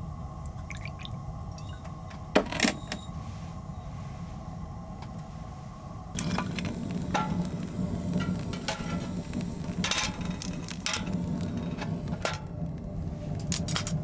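A drink is poured from a bottle into a small glass cup, with a sharp clink about two and a half seconds in. From about six seconds in, split logs crackle and pop irregularly inside a wood-burning stove over the low rumble of the fire.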